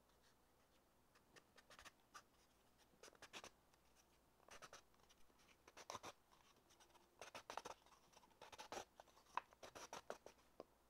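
Lie-Nielsen cutting gauge's blade scratching a scored line into the inside of a wooden cylinder as the cylinder is turned against it: faint, short scratches in small bursts, scoring the kerf that will become the groove for the pot's bottom.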